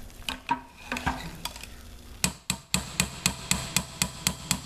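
Metal spoon stirring thick hot-process soap in a stoneware crock pot. There are a few scattered knocks at first, then from about two seconds in the spoon clicks against the crock at a steady rate of about four times a second.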